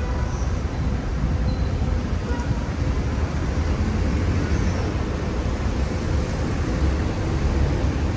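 Street traffic dominated by a city bus's engine close by: a steady low rumble.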